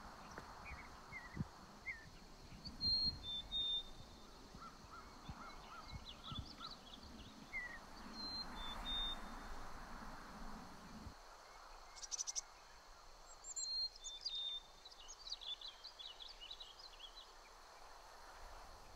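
Wild songbirds chirping and singing, with short notes and quick trills scattered throughout. Low wind rumble on the microphone runs under them until it cuts off about eleven seconds in.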